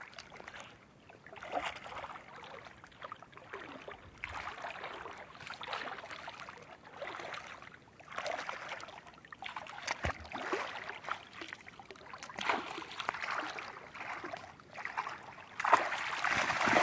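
Water sloshing and splashing in uneven surges every second or two, with a few sharp knocks, getting louder near the end.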